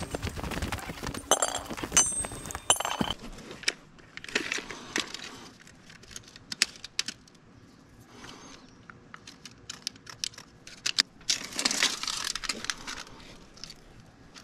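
A steel pick biting into hard, stony dirt, three sharp strikes with a metallic ring in the first few seconds. Then small clicks and scrapes from a tape measure and marker being handled on a concrete slab.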